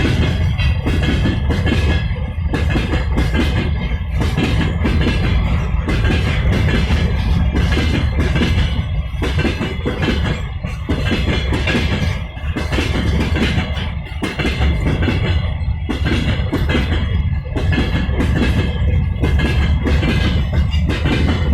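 Freight train wagons rolling past at speed, with a steady low rumble and a regular beat about every second and a half to two seconds as wheelsets pass.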